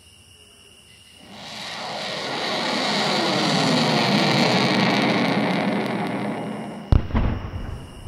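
Meteorite sound effect: a rushing roar swells over a few seconds and fades. A sharp, deep impact boom hits about seven seconds in, with a brief rumble after it. Faint crickets chirp at the start.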